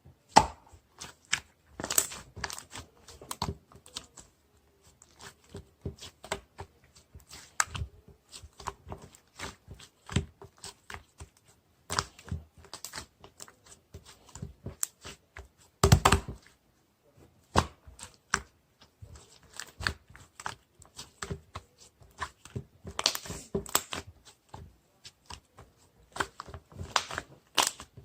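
Irregular clicks and taps mixed with crinkling and tearing, as of material being handled and worked by hand, with a few louder knocks.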